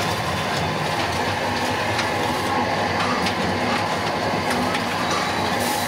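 Large rotating freezer drum of a roller ice cream machine running, a steady mechanical rumble with a few faint ticks.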